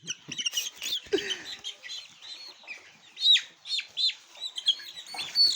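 A flock of six-week-old chickens cheeping and clucking, many short high calls overlapping, some sliding downward in pitch.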